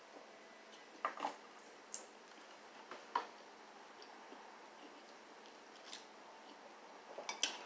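Quiet eating sounds from a person eating fried chicken and a biscuit: a scattering of soft wet mouth clicks and smacks, with a quick cluster of them near the end.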